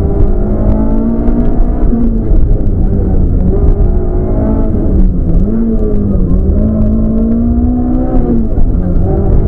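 Peugeot 206 rally car engine pulling hard from inside the cabin, its pitch climbing and then dropping back at gear changes or lifts about two, five and eight and a half seconds in, over steady road rumble.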